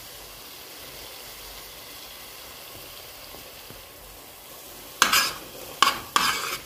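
Tomato sauce sizzling gently in an oiled pot, then from about five seconds in a metal spoon stirring it in a few quick scraping strokes against the pot.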